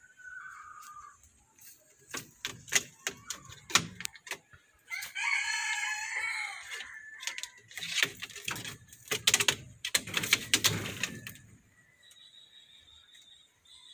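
A rooster crows once, a drawn-out call of about two seconds starting around five seconds in. Around it come runs of sharp knocks and rattling clatter, the loudest sounds here.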